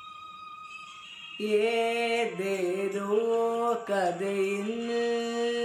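A boy's voice singing long held notes of a Malayalam song over an instrumental accompaniment. A faint held instrumental note comes first, and the voice enters about a second and a half in, holding each note and stepping between pitches.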